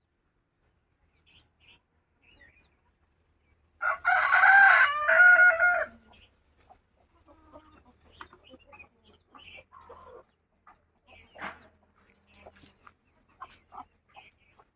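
A rooster crows once, a loud call of about two seconds starting about four seconds in, followed by faint scattered clucks and short calls from chickens.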